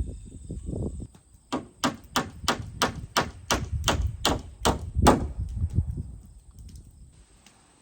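A hammer driving a nail into 2x4 wooden strapping: about eleven steady strikes, about three a second, the last blow the loudest.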